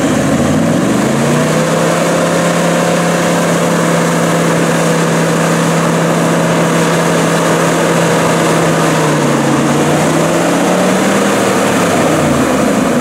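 A 4x4's engine revving up and held at steady high revs for about ten seconds under load in heavy sand, then easing off near the end.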